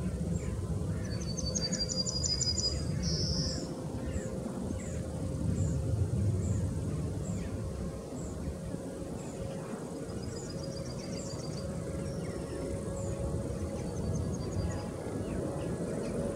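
Distant jet airliner engines rumbling low, with a faint steady whine. Small songbirds chirp over it: a short high note repeated about twice a second and a few rapid trills, around two seconds in, near the middle and later.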